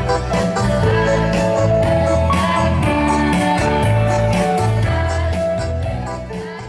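Instrumental music with a steady beat and held chords, fading out near the end.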